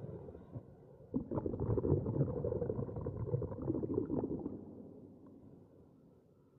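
Muffled, irregular low rumbling of wind and road noise on the microphone of a moving vehicle on a wet road, with a few faint knocks. It swells about a second in and fades away over the last two seconds.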